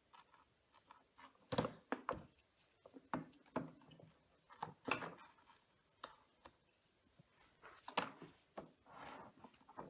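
Plastic parts of an upright vacuum cleaner clicking and knocking as its brush roll and drive belt are handled and fitted back into the housing. The knocks come singly and unevenly, about eight in all.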